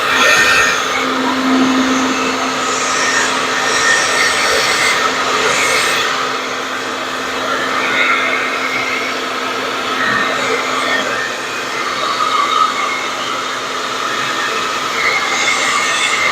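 Hand-held blow dryer running steadily, its airflow rising and falling a little in loudness as it is moved about, blowing wet acrylic pour paint across ceramic coasters.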